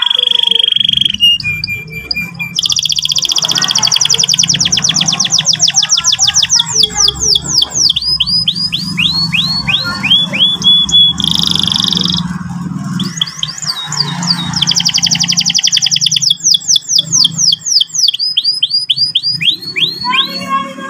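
Canary singing: two long runs of rapid rolling trills, each slowing into separate sweeping chirps, with short held whistle notes between them. A low steady hum runs underneath.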